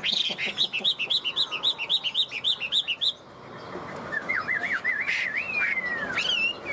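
Chinese hwamei singing: a fast run of repeated rising-and-falling whistled notes, about four a second, for the first three seconds. After a short pause comes a lower, wavering warble that ends in a long falling slur.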